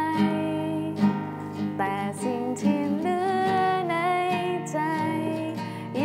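Acoustic guitar strummed as accompaniment, with a woman singing long held notes over it.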